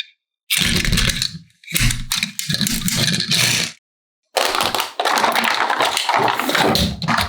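Plastic toy pieces and packaging being handled, clattering and rattling in several bursts of a second or two that start and stop abruptly.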